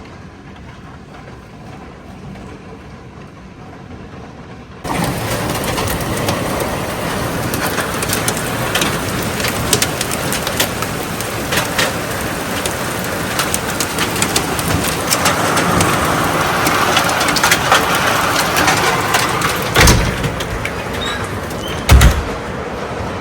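Thunderstorm: a quieter steady hiss gives way, about five seconds in, to loud rain and wind with many sharp ticks of drops striking. Two heavy thumps come near the end.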